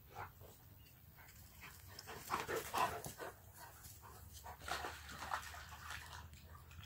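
Shepherd-cross dog panting in two short bursts, about two seconds in and again near five seconds.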